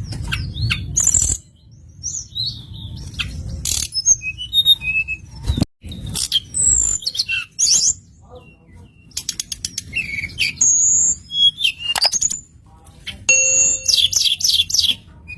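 Small songbird singing a varied string of sharp chirps, whistles and quick trilled runs, the kind of lure song played to set caged birds singing.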